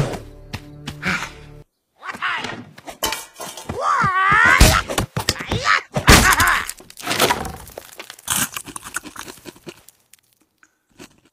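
Animated-film slapstick sound effects: a run of thuds and crashes of breaking wood, with short vocal grunts and music underneath, dying away near the end.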